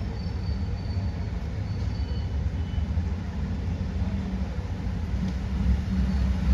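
Steady low background rumble with no clear single event, with a faint high whine over it.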